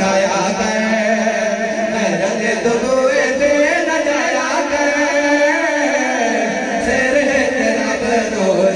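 Men's voices singing a Punjabi devotional kalam together without instruments, amplified through microphones, with long held, slowly wavering notes.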